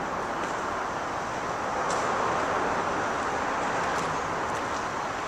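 Steady noise of road traffic on the elevated highway overhead.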